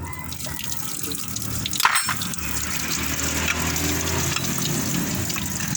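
Water running and splashing, with one sharp short sound about two seconds in and the running water getting fuller after it.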